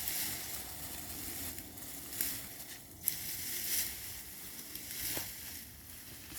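Rustling and crunching of wood-chip mulch and sweet potato vines being dug through, with a few short crunchy bursts and one sharp click about three seconds in.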